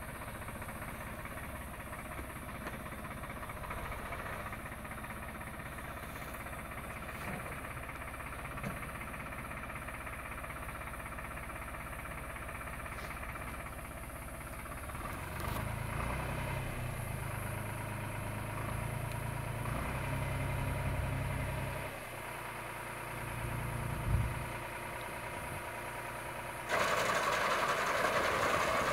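Tractor engine running with its power take-off driving a reaper-binder: a steady mechanical hum that gets louder about halfway through, with a single knock shortly after. Near the end a much louder, clattering run starts suddenly.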